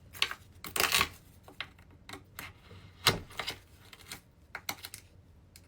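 Small scattered clicks, taps and scrapes of oysters being pried open and handled, with a sharper knock about three seconds in.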